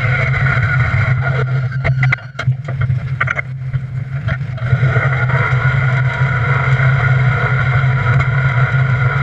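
The pulling tractor's 38.88-litre V12 engine, built for diesel and converted to methanol, running hard under load with a steady low drone. About two seconds in the sound drops and breaks up with crackles, and it steadies again at full pull about five seconds in.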